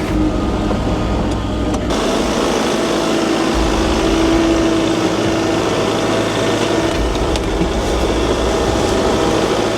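Kubota tractor's diesel engine running steadily under load while a box blade grades dirt.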